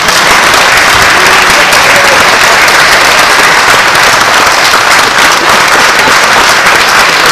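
Audience applauding, loud and steady, as an award winner is called up.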